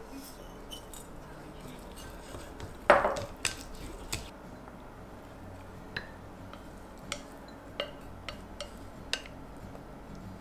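Dishes and utensils being handled: one loud clattering knock about three seconds in, then a scattering of light clicks and clinks.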